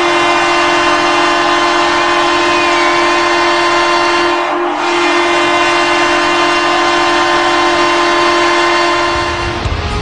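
Hockey arena goal horn blowing one long, loud, steady note, wavering briefly about halfway through. It cuts off near the end as the goal song begins.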